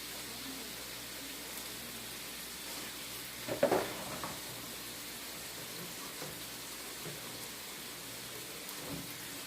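Chicken pieces sizzling steadily as they fry in a pot on the stove, with a brief clatter about three and a half seconds in.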